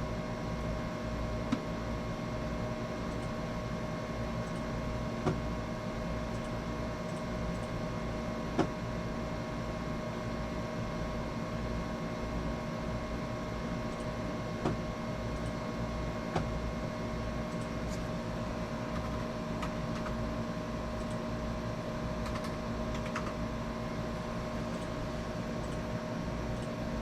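Scattered single clicks at a computer as laser job settings are entered, a few seconds apart, over a steady machine hum with several fixed tones.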